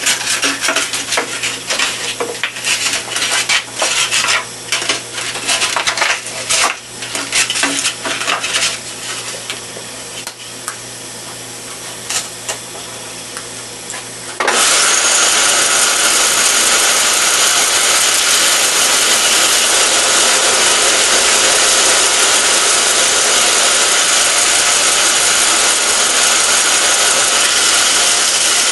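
Metal clinks and rattles as a belt is fitted on a homemade 2x72 belt grinder; about halfway through, the grinder, driven by a motor salvaged from an air compressor, is switched on and runs with a loud, steady whir of belt and motor.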